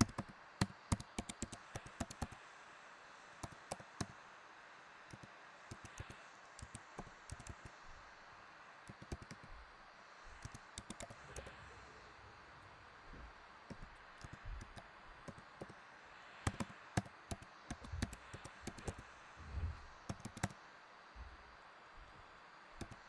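Typing on a computer keyboard: irregular bursts of quick key clicks with short pauses between them, as answers are entered one after another.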